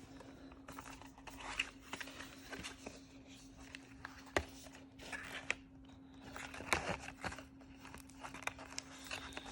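Plastic packaging rustling and crinkling, with scattered sharp clicks and knocks, as a keyboard's cable and box contents are handled; a faint steady hum lies underneath.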